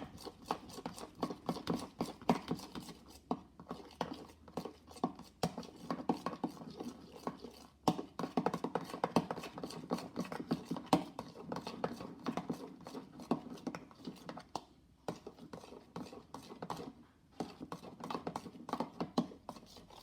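A mixing tool stirring slime in a bowl: a fast, uneven run of clicks and taps with a few brief pauses.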